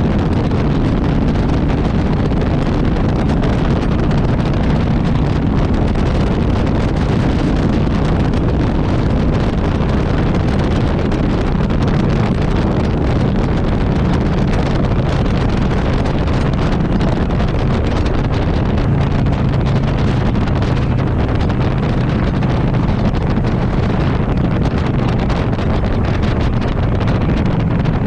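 Vehicle running steadily under heavy wind and road noise, with a low steady hum from its transmission, which is making a noise.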